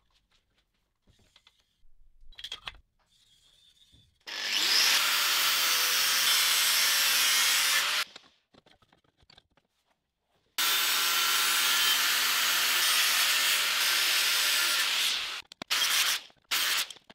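Angle grinder with a cut-off disc cutting through square steel tubing: two long cuts of about four seconds each, the first starting as the motor spins up, then a few short bursts near the end. Faint marker scratches and handling noises come before the first cut.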